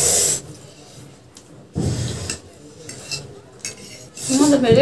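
Utensils clinking and scraping against a bowl while noodles are eaten, in short noisy bursts at the start and about two seconds in. A brief voice sound near the end.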